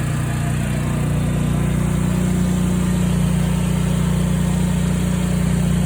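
8 kW generator's engine running steadily, getting slightly louder between about one and two seconds in.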